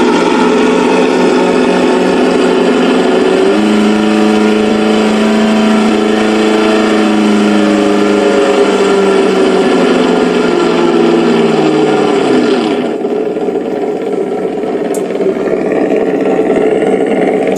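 ESS-One engine sound simulator playing its stock, out-of-the-box engine sound file through the RC truck's speaker. The simulated engine steps up in revs about 3.5 s in and slowly sags in pitch. At about 12.5 s the revs drop away and it falls back to a lower, duller idle.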